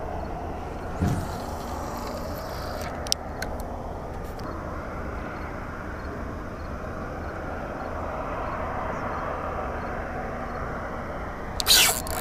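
Steady outdoor background noise, wind and distant rumble on the microphone. A few sharp clicks come about three seconds in, and a loud scraping burst comes near the end.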